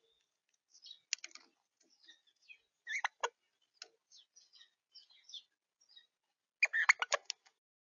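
Crimson rosellas at a feeder: soft, scattered chirps with clusters of sharp clicks. The clicks come about a second in and about three seconds in, and the loudest cluster comes near the end.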